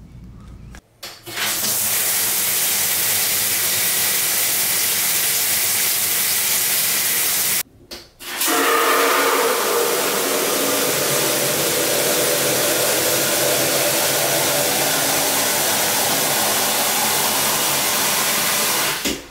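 Andegu shower head spraying a full stream of water into a clear plastic container: a steady hiss of spray and splashing water. It starts about a second in and cuts out briefly about eight seconds in before running on.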